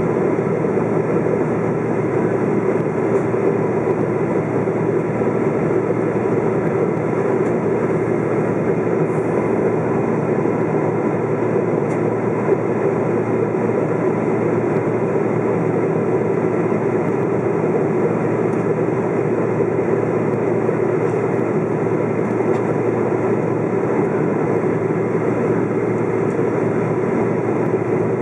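Steady in-flight cabin noise of a KLM Boeing 777-200 heard from a window seat beside its General Electric GE90 turbofan: an even rumble of engine and airflow with a faint steady whine over it.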